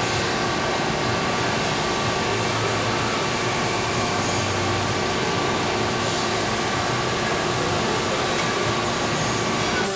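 Centerless grinder with a diamond wheel running steadily while thrufeed grinding carbide rod: an even machine drone and rushing noise with a faint steady whine.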